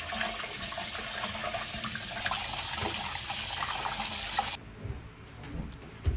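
Kitchen tap running onto cooked noodles in a steel pot, water splashing as hands rinse the noodles. The water sound cuts off suddenly about four and a half seconds in, followed by a few soft knocks.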